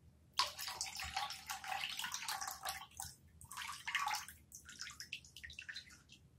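Water running and splashing, starting about half a second in, then breaking up into intermittent splashes and trickles that thin out near the end.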